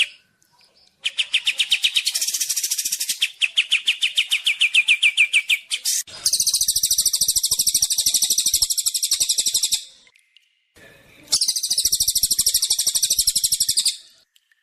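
Songbird singing fast trills of rapidly repeated notes: a lower trill through the first half, then two higher, buzzier trills with short pauses between them.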